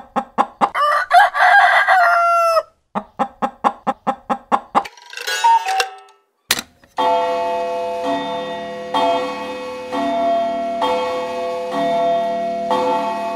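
Experimental electronic soundtrack: sharp clicks with short gliding, cluck-like calls at the start, and a faster run of clicks. About halfway in comes a single sharp click, then sustained bell-like chords restruck roughly every two seconds.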